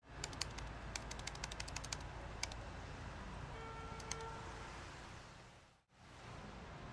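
Laptop keyboard typing: a quick run of keystrokes over about two and a half seconds, then two more clicks a little later, over a steady low room hum. A faint brief tone sounds in the middle, and the sound fades out just before six seconds and comes back.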